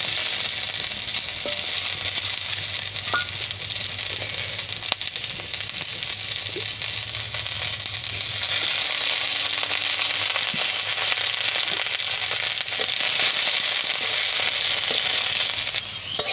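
Garlic cloves sizzling in hot oil in a metal wok, a steady frying hiss with a few faint clicks, as the cloves brown.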